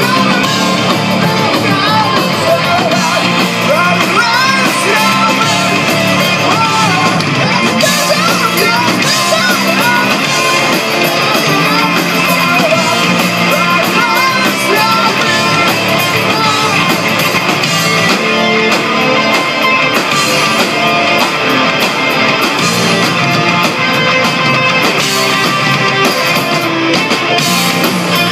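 A live rock band playing loud and steady: electric guitars, electric bass and a drum kit, with a male singer's vocals over them, heard from the audience in a small club.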